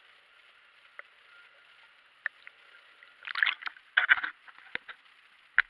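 Water splashing and sloshing around an underwater action camera as it comes up through the surface, in two short bursts about three and four seconds in. A few sharp knocks come before and after, over a faint steady hiss.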